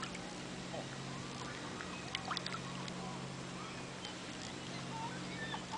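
Shallow water lapping over gravel at the shoreline under a steady low hum, with a few faint clicks and ticks.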